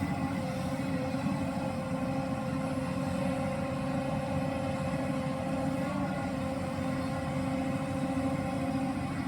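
Hyundai R215L SMART X Plus hydraulic excavator running steadily: a constant diesel engine drone with a steady hum on top, unchanging throughout.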